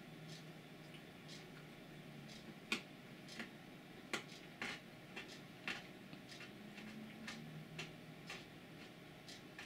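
A cat chewing soft, pre-chewed almond pieces eaten from a hand: quiet, irregular clicks, roughly one a second, the loudest a little under three seconds in. A faint low hum comes and goes.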